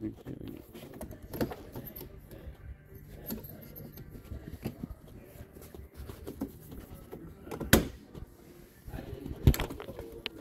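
A few sharp knocks and clunks, the loudest about three-quarters of the way in, with rustling and handling noise between them: a pickup truck's rear-hinged suicide door being opened and handled.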